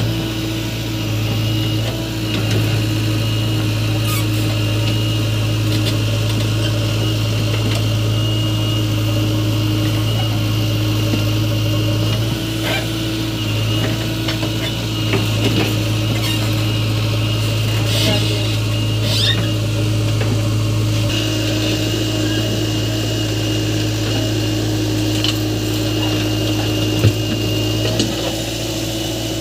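JCB 3DX backhoe loader's diesel engine running steadily as the backhoe digs and swings soil, with a few short knocks from the bucket and soil in the middle.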